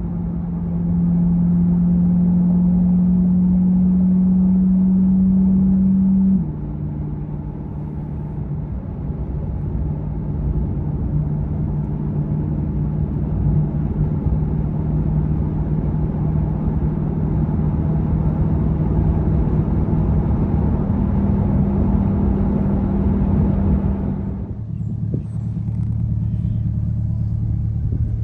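Corvette C8's V8 engine running while the car is driven. The engine note drops suddenly about six seconds in, as at a gear change, then climbs slowly. Near the end it falls to a lower, quieter note as the car slows.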